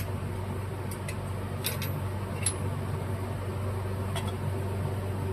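A steady low background hum, with four faint light clicks of small metal carburetor parts being handled and fitted.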